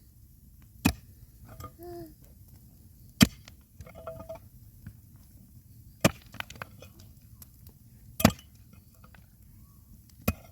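Sharp chopping blows on wood, five of them, spaced about two to three seconds apart.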